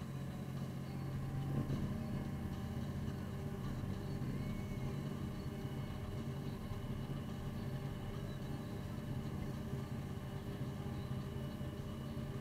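Snowplow truck's engine running steadily while the truck pushes snow with its front blade, a low even drone, with a short bump about one and a half seconds in.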